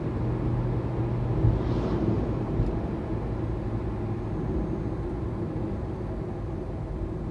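Steady road and tyre noise of a Hyundai Ioniq Electric heard from inside the cabin at about 85 km/h, easing slightly as the car slows under regenerative braking.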